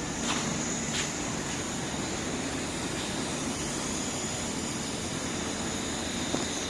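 Hot oil (thermal oil) boiler running: a steady, even mechanical roar with a thin high whine over it, and two short clicks about a third of a second and a second in.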